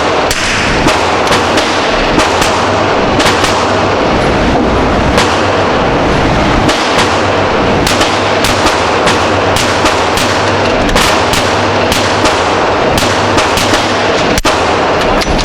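Gunfire from several guns at a busy shooting range: many sharp shots a second at irregular spacing, some louder and closer than others, over a dense, steady background of further shots.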